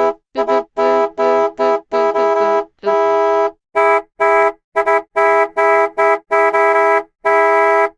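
Multi-tone bus horn honked in a quick rhythmic run of short and longer blasts, each a steady chord. At first the notes shift from blast to blast like a tune; from about halfway they repeat evenly on one chord.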